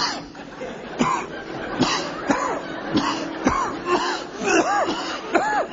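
Men coughing and clearing their throats over and over: short, sharp coughs about every half second, then drawn-out rising-and-falling 'ahem' noises in the last second or so.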